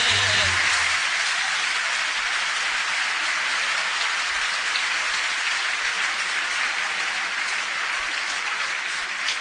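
Live concert audience applauding, a dense, steady clapping that tapers slightly. The orchestra's last low notes die away about a second in.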